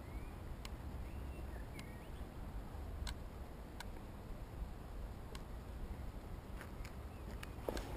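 Wind rumbling low and unevenly on the camera microphone, with scattered faint clicks and a few faint bird chirps in the first two seconds.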